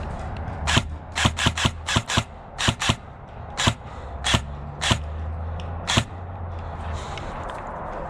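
Airsoft gun fired in about a dozen single shots, sharp cracks in quick uneven runs, some barely a quarter of a second apart, tailing off over several seconds.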